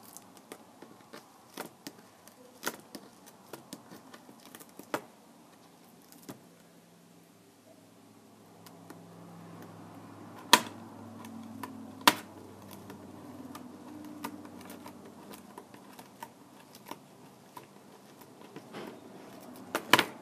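Scattered small clicks and taps of hand tools and plastic parts being handled on a tablet under repair, with two sharper clicks about ten and twelve seconds in and another near the end. A faint low hum runs beneath from about eight seconds in.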